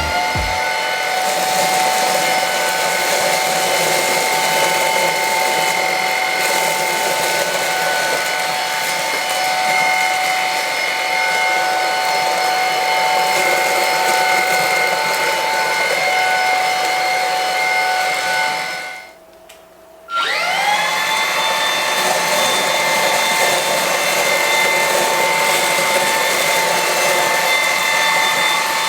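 Xiaomi Dreame V9P cordless stick vacuum's motor running with a steady high whine. About two-thirds of the way through it is switched off and winds down, then about a second later it is switched back on and spins straight back up to the same speed.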